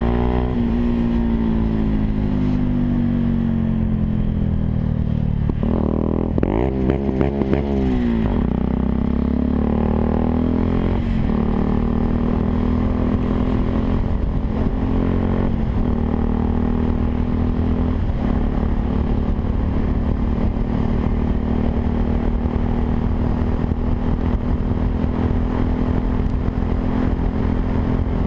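Yamaha WR 125 R's single-cylinder four-stroke engine running through a Takkoni aftermarket exhaust: it starts up and its revs settle over the first few seconds, gets a few quick throttle blips about six to eight seconds in, then idles steadily.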